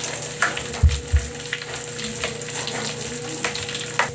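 Bath crackles popping in a bowl of water, a steady crackle of many small snaps like Pop Rocks, with two low thumps about a second in.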